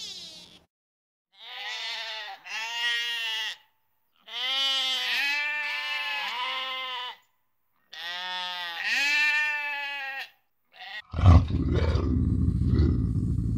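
Goat bleating: a series of four or five bleats with a wavering, quavering pitch, the middle ones two to three seconds long. About eleven seconds in, the bleating gives way to a loud, low, noisy sound.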